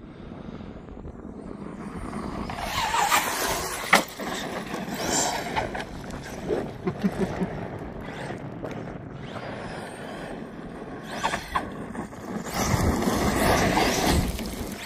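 A 1/5-scale electric RC truck with a Castle Cobra 5 HV ESC being driven across a dirt lot, its electric drive and tyres on loose dirt passing twice, louder about three seconds in and again near the end, with a sharp click about four seconds in.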